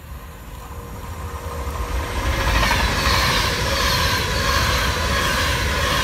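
Avanti West Coast Class 390 Pendolino electric train passing at speed close by. The rail and wheel noise builds over the first two and a half seconds into a steady loud rush of wheels and air as the carriages go past.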